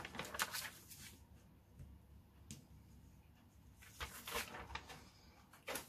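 Large sheet of paper rustling as it is flipped over and smoothed flat by hand: a short rustle at the start and another about four seconds in, with a light tap near the end.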